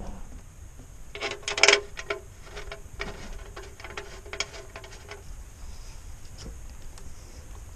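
A burst of metallic clattering about a second and a half in, then scattered lighter clicks. This is a metal oil filter wrench being handled and fitted around the engine's oil filter under the RV.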